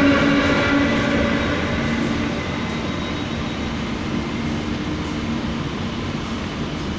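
A Trenitalia E.402 electric locomotive and its coaches moving off. A whine of several steady tones and rail noise fades over the first couple of seconds, leaving a lower steady hum.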